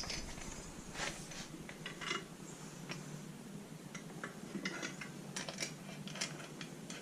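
Light, scattered metallic clinks and ticks of a bicycle chain being worked back onto the chainring and rear cog by hand.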